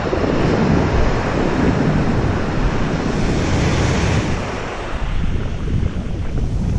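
Ocean surf: a wave breaking and its foaming whitewash rushing in, the hiss swelling about three to four seconds in, with wind buffeting the microphone in a low rumble.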